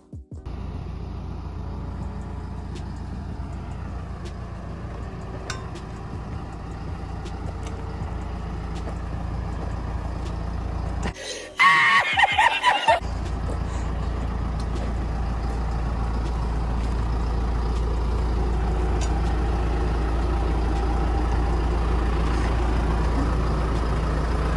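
Claas tractor's diesel engine running steadily, slowly growing louder. About halfway through, a man's hearty laughter is cut in for a couple of seconds and is the loudest sound.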